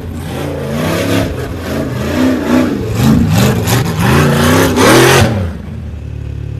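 Off-road 4x4 engine revving hard, the pitch rising and falling again and again about twice a second as the driver works the throttle, then dropping to a steady lower running note about five and a half seconds in.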